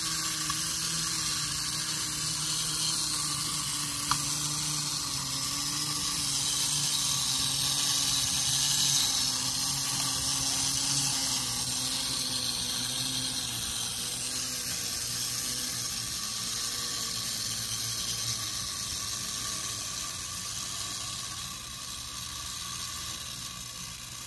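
Clockwork spring motor of a vintage Yoshiya High Wheel Robot tin wind-up toy whirring as the robot walks and its chest gears turn, a steady buzzing hum that falls slowly in pitch as the spring runs down.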